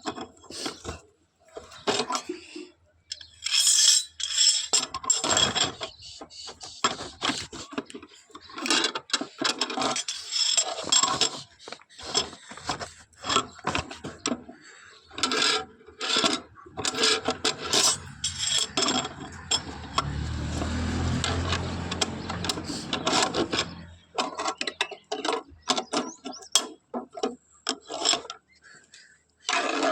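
Hand-tool work: irregular knocks and metallic clinks with scraping and rubbing, and a low steady hum for about four seconds around two-thirds of the way through.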